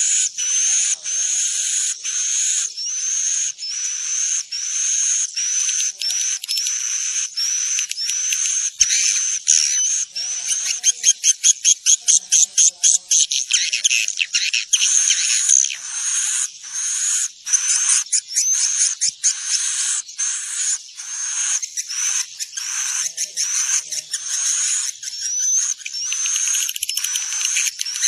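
Swiftlets chirping: a steady chain of short, high, rising chirps, more than one a second, broken about eleven to thirteen seconds in by a run of fast, even clicking pulses. It is a swiftlet lure call ('suara panggil walet menginap'), played to draw swiftlets to roost in a nesting house.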